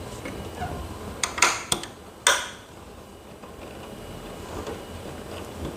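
Sharp metallic clicks and knocks from the stainless-steel and teak folding table frame as a locking part is worked into its hole: a quick run of clicks between one and two seconds in, then one louder knock with a short ring. The part is stiff and doesn't line up easily.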